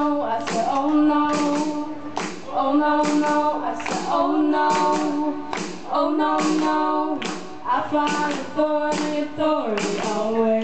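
Live band playing a song: held chords with singing, over sharp percussive hits on a steady beat about twice a second.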